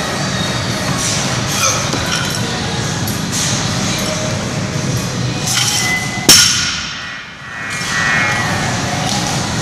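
A loaded barbell with 45-lb plates dropped onto the rubber gym floor after a clean: one sharp crash about six seconds in, followed by metallic ringing, over steady background noise.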